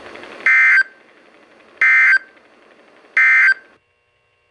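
NOAA Weather Radio SAME end-of-message code: three short, identical bursts of warbling digital data tones about 1.3 seconds apart, signalling the end of the tornado warning. Faint radio hiss lies between the bursts and cuts off just after the third.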